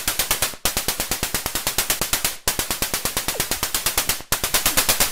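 Rapid rattling clatter of sharp clicks, about ten a second, in repeated bursts of roughly two seconds with short breaks between them.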